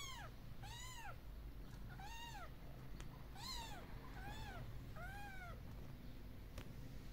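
Kittens mewing as the litter crowds against the mother cats to nurse: six short, high-pitched mews about a second apart, each rising and then falling in pitch.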